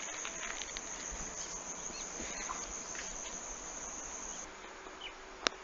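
Outdoor ambience with a steady, high-pitched insect chirring that stops about four and a half seconds in, and a sharp click near the end.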